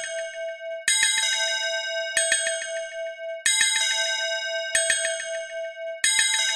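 Background music: a sparse passage of bright bell-like chimes, struck about every second and a quarter over a held mid-pitched tone.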